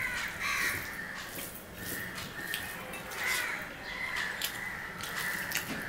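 Fingers mixing rice and greens on a steel plate, with small clicks and smacks of eating. A bird caws several times in the background.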